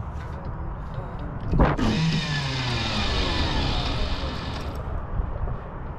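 A long fishing rod cast: a sharp whoosh as the rod swings through, then fishing line running off the reel with a hiss and a whine that falls in pitch for about three seconds, cutting off suddenly as the cast lands.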